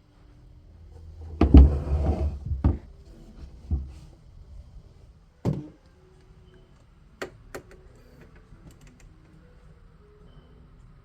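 Household objects being handled and set down: a burst of rustling and knocking, a couple of single thuds, then two sharp clicks.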